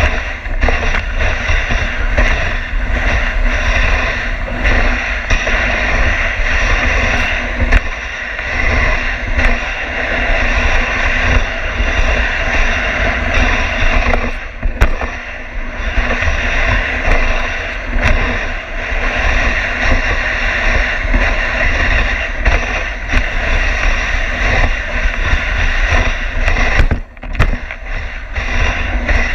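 Dog sled runners scraping and hissing steadily over packed snow, with wind rumbling on the sled-mounted microphone. The noise drops briefly twice, about halfway through and near the end.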